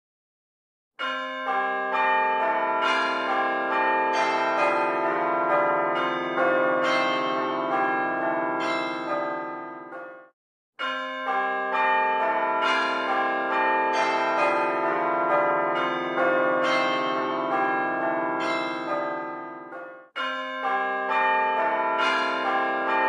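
Bells ringing in a rapid, dense run of overlapping strikes. It starts about a second in, stops briefly near the middle and again near the end, then starts again each time, like a repeating passage of about ten seconds.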